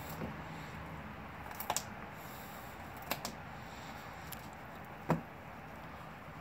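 Blue Bay Shepherd gnawing a frozen raw deer leg: a handful of short, sharp crunches of teeth on frozen meat and bone, a second or so apart, the loudest about five seconds in.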